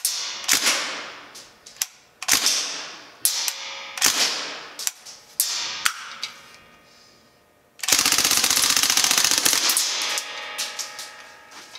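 Northeast Sten MK5 open-bolt gas blowback airsoft replica firing: a string of single shots, each with a ringing tail, then a full-auto burst of about two seconds about eight seconds in.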